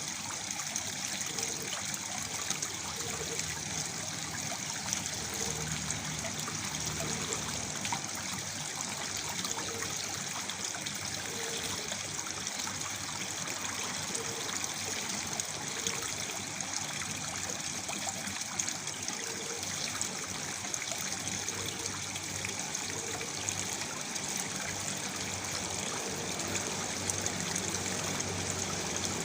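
Small waterfall with water falling and trickling in a steady, unbroken rush.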